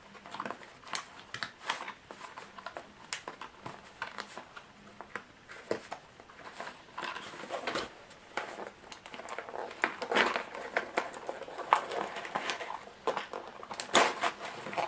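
Plastic box packaging crinkling and clicking as a gaming mouse is worked loose from its moulded insert: scattered short taps and rustles that get busier in the second half.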